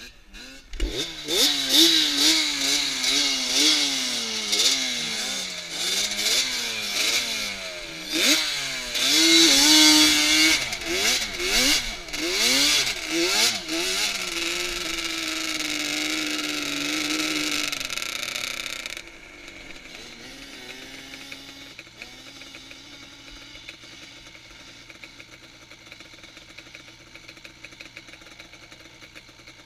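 Sport ATV engine revving hard, its pitch climbing and dropping again and again as the rider works the throttle. It then holds a steady high note, and about nineteen seconds in it backs off to a quieter, steady low running to the end.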